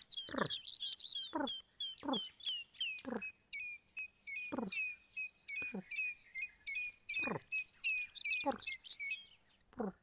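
Meerkats calling: short calls that drop steeply in pitch, about one a second, over a dense stream of high, quick chirps that stops near the end.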